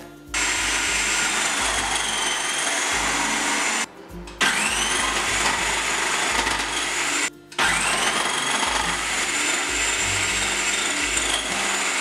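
Electric food processor slicing carrot, sweet potato and parsnip through its slicing disc. The motor runs in three stretches with two short pauses between, a steady whirring grind with a whine that rises as it comes up to speed after each pause.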